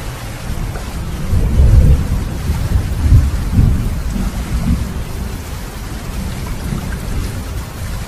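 Steady rain with thunder rumbling. Deep rumbles swell up about a second and a half in and again around three seconds in, then ease into lighter rumbling.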